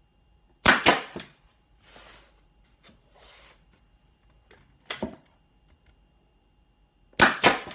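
Nail gun firing pins into thin MDF: a sharp double clack about a second in, another around five seconds, and a double clack again near the end.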